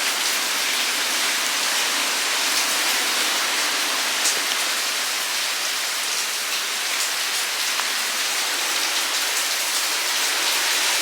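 Heavy hurricane rain pouring steadily, with scattered drop ticks.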